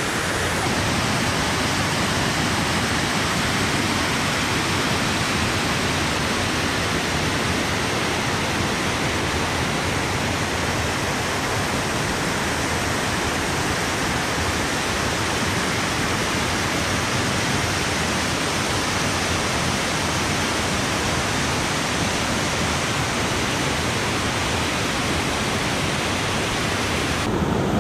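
Waterfall and cascading creek water rushing: a steady, even, unbroken noise.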